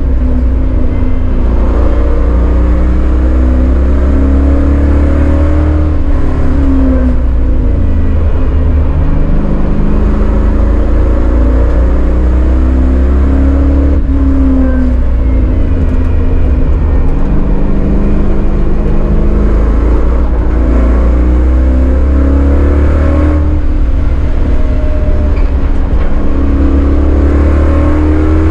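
Chevrolet Caprice 9C1's 5.7-litre LT1 V8 at track pace, heard from inside the stripped cabin. The engine note repeatedly climbs under acceleration and drops away under braking into the corners.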